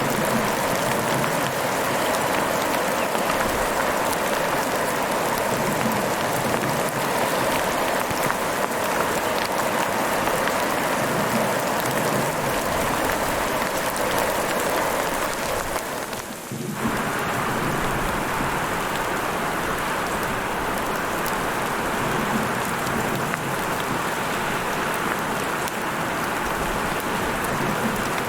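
Heavy rain falling steadily, a dense, even hiss, with a brief dip in level a little past halfway.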